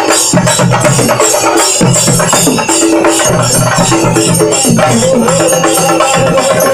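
Chende drums of a chende melam troupe beaten with sticks in a fast, loud, unbroken rhythm.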